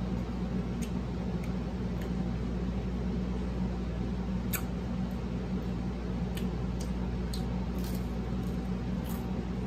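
Close-up eating sounds of fried flounder being chewed: scattered sharp crunches and mouth clicks, a dozen or so, over a steady low hum.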